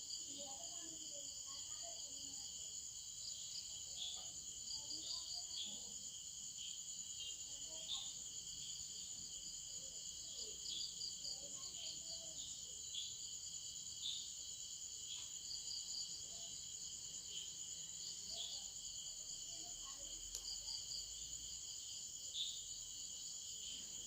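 Faint, steady chorus of crickets and other insects, a continuous high trill with short chirps repeating throughout.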